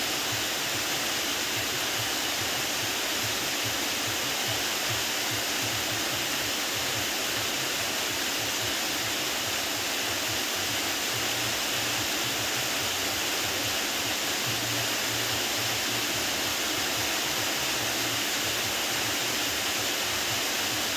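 Steady hiss of heavy rain, unchanging throughout, with a faint low hum under it.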